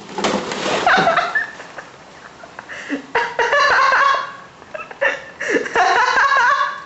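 Three loud bursts of wordless human vocalising, each about a second long, high-pitched and wavering in pitch.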